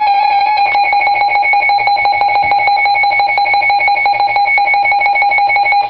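Loud electronic weather-alert alarm tone, held at one pitch with a rapid warbling pulse and cutting off abruptly near the end: the attention signal that comes before a severe weather warning broadcast.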